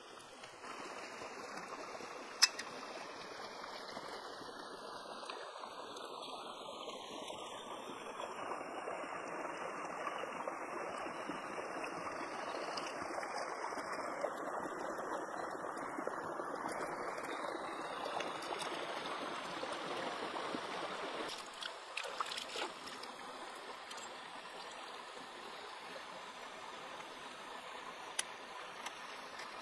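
Stream water running and splashing around hands rinsing an eel, louder through the middle of the stretch. A single sharp click comes about two seconds in, and a few knocks come later on.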